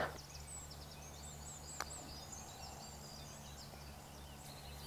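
Small birds singing faintly in quick, high chirps and twitters, with one faint sharp click about two seconds in.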